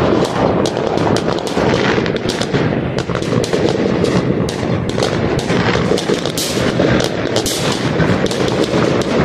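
Fireworks going off: a dense, irregular run of sharp bangs and cracks, several a second, over a continuous din of more distant explosions.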